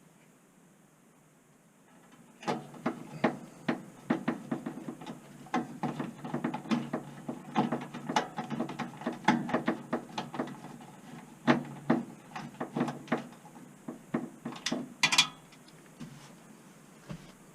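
Irregular clicks, knocks and clatter of a hand screwdriver driving screws into a furnace's sheet-metal panel, starting about two and a half seconds in, with a sharper rattle near the end.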